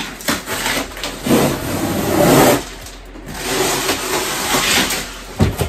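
A cardboard shipping box being opened by hand: packing tape ripped off and the flaps pulled open. There are two long tearing noises, the first about a second in and the second past the middle, with sharp knocks on the cardboard near the start and near the end.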